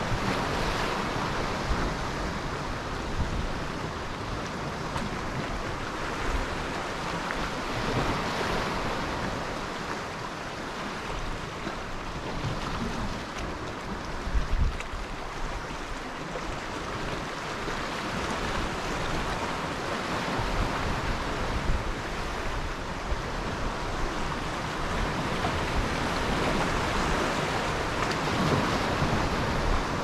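Sea surf washing against the shore, a steady rush of breaking waves that swells and eases every several seconds. A few short low rumbles of wind buffet the microphone, the strongest about halfway through.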